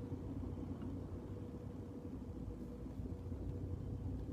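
Steady low background hum with a faint, even tone in it.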